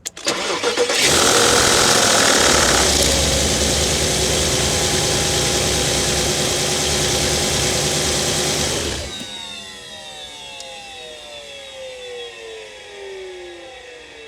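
Audi A8 (4E) engine starting: a brief crank, then the engine catches with a loud rushing noise over it for about eight seconds. The rushing cuts off sharply, and several falling whines follow as the engine runs on more quietly.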